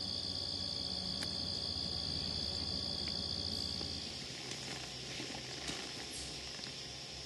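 Steady, high-pitched trilling of insects in late-summer vegetation, which drops away about four seconds in. After that there is fainter outdoor ambience with a few faint ticks.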